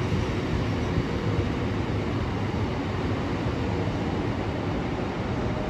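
Steady rumble of a freight train's aggregate hopper wagons rolling over the track as the tail of the train passes and draws away.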